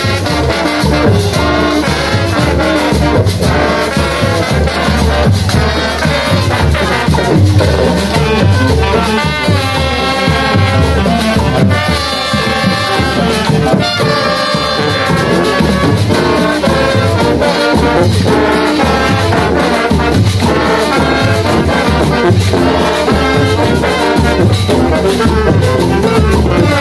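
Student marching band playing loudly: sousaphones, saxophones, trumpets and trombones over a steady beat.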